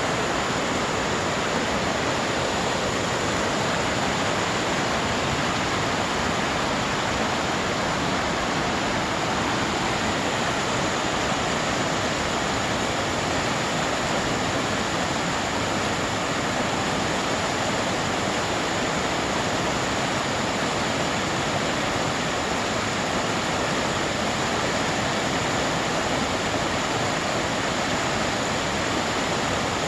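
Flowing water rushing steadily, an even unbroken noise with no separate splashes or other events.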